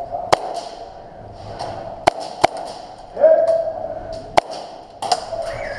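Airsoft guns firing single sharp shots, four in all: one near the start, a quick pair about two seconds in, and one more past the four-second mark, with distant voices calling in between.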